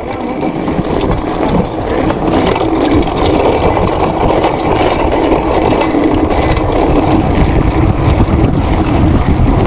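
Mountain bike rolling fast over cobblestones: a continuous loud rumble of the tyres drumming on the stones, with a rapid rattling of the bike shaking over the bumps.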